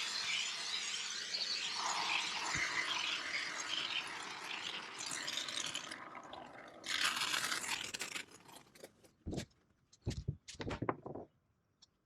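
A can of expanding spray foam spraying with a sputtering hiss that fades over about six seconds, then a second short burst about seven seconds in. A few short knocks follow near the end.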